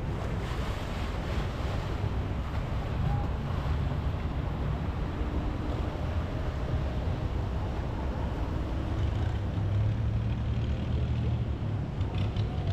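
Boat engine running steadily with a low hum, with wind noise on the microphone.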